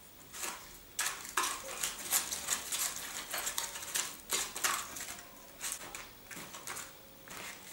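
Paintbrush stirring and scraping thick structural primer in a clear tray, tinting it a light green: a busy run of irregular clicks and scrapes of the brush against the tray, thinning out near the end.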